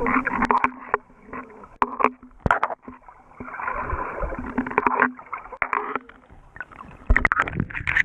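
Muffled underwater sound picked up through an action camera's waterproof housing: water sloshing and gurgling past the case, scattered sharp clicks and knocks, and a faint low steady hum. Near the end a burst of loud knocks and splashes as the camera breaks the surface.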